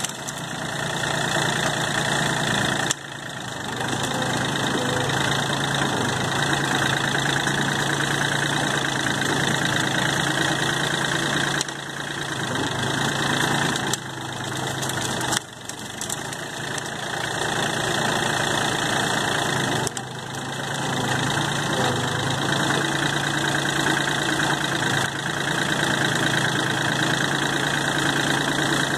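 John Deere compact tractor's engine running steadily while the tractor works at a brush pile, its pitch stepping up and down a few times with engine speed. The level drops briefly and recovers a few times.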